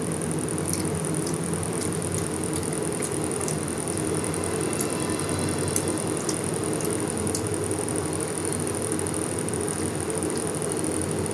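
Someone eating rice and fish curry by hand, with scattered soft chewing and mouth clicks over a steady low hum.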